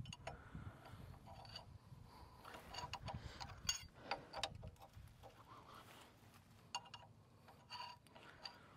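Faint, irregular metallic clicks and taps of an Allen key and wrench working at an over-tightened oil drain plug, which has not yet broken free.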